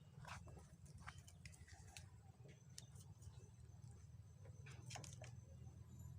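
Near silence: a low steady hum with scattered faint clicks and crackles.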